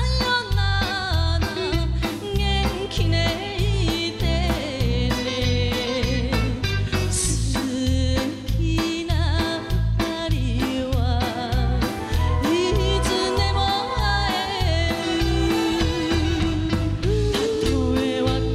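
A woman singing an enka-style song in Japanese, her voice wavering with vibrato, over a backing band track with a steady beat.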